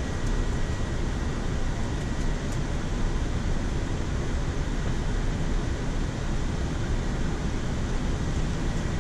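Steady flight-deck noise in a Boeing 787-9 on approach at about 2500 ft: an even rush of airflow and air conditioning, strongest in the low end, with a faint steady high tone above it.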